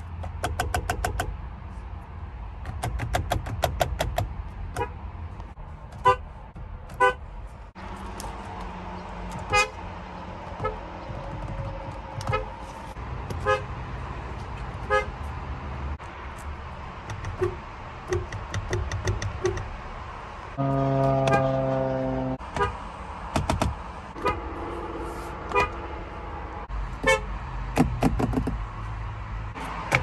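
Car horns of several different cars, including a Honda, a Scion and a Toyota, honked one after another. Most are short toots, some in quick runs, and there is one steady blast of about two seconds a little past two-thirds of the way through.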